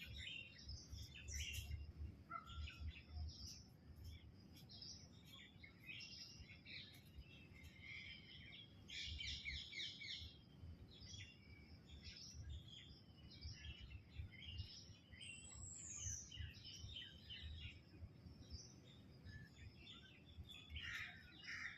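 Faint chorus of birds chirping, many short calls overlapping, with one falling whistle about fifteen seconds in, over a steady low rumble.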